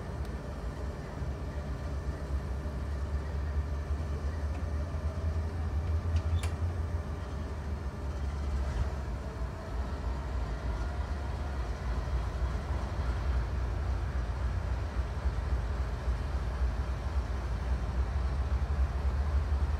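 Norfolk Southern diesel locomotive NS 4166 idling while stopped: a steady low rumble, with one faint click about six seconds in.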